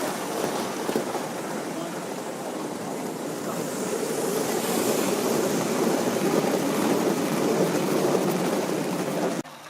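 Gauge 1 model train running on the garden track: a steady rushing rumble with hiss that grows louder in the second half, then stops abruptly near the end.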